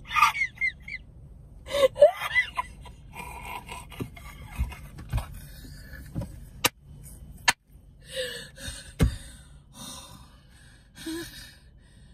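A woman laughing breathlessly in fits, gasping for air between them. A few sharp clicks come about halfway through.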